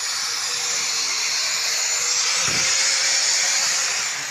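Steady, loud hissing noise with a faint constant hum beneath it, from a source that cannot be named.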